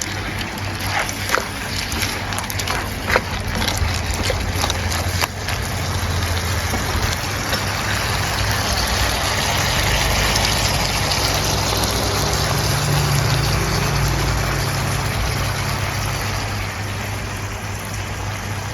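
Clams stir-frying in a hot wok with a steady sizzle over a low hum, and a few sharp clicks of a utensil against the pan in the first few seconds.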